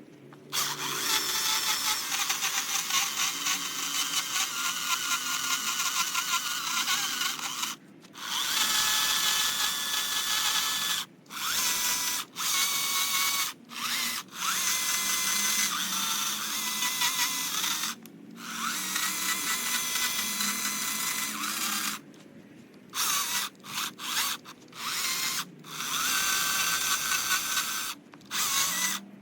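Stihl battery-powered chainsaw with a quarter-pitch chain, cutting into eastern red cedar in a run of bursts. Its high-pitched motor whine stops for a moment and starts again a dozen or so times, more often near the end.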